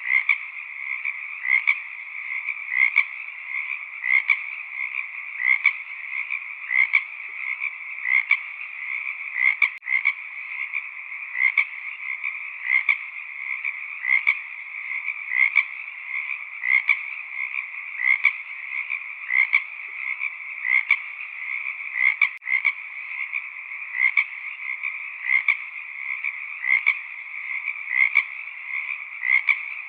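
A frog chorus: a steady mass of calling with one louder croaking call standing out about every second and a half.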